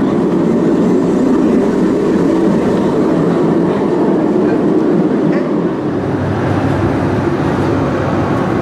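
Trams passing close by on street rails: a steady rumble of steel wheels and running gear that eases a little about six seconds in.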